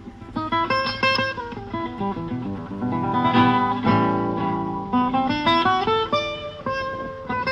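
Background music: a melody picked and strummed on guitar.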